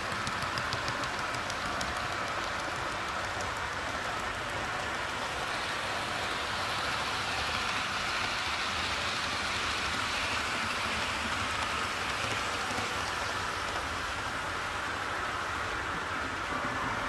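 HO-scale (16.5 mm gauge) model trains rolling over sectional track: a steady metallic running noise of wheels on rail, with quick light ticks from wheels crossing rail joints early on, swelling in the middle as a longer train passes close by.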